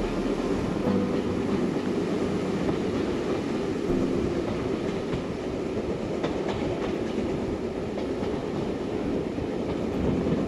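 Steam-hauled passenger train running along the line, heard from an open carriage window: a steady rumble of the coaches' wheels on the rails.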